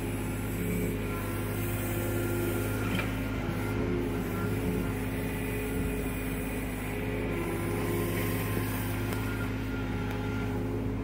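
John Deere mini excavator's diesel engine running steadily under work, a constant hum with an even drone and no change in pace.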